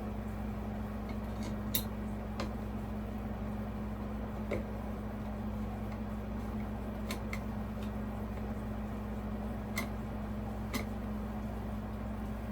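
Scattered sharp clicks and small metal taps, about seven spread irregularly over the stretch, from screws and mounting hardware being handled while a ceiling fan motor is fastened to its bracket. A steady low hum runs underneath.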